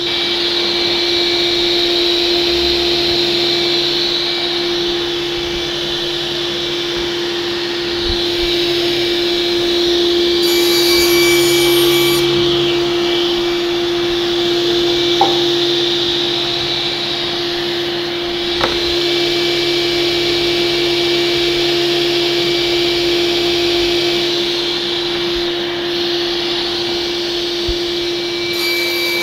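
SCM SC 1 Genius sliding table saw running with its blade spinning, a steady hum and hiss, as a panel on the sliding carriage is fed through to be cut. Two light clicks come about halfway through.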